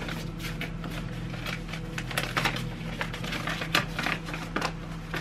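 Gift wrapping rustling and crackling as a wrapped present is handled and unwrapped, with irregular sharp crinkles throughout.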